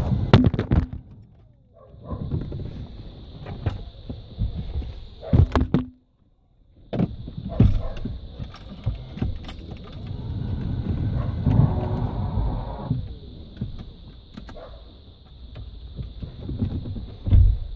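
Handling noise on the microphone: irregular rubbing and knocks, with a faint steady high whine behind them. The sound drops out briefly about six seconds in.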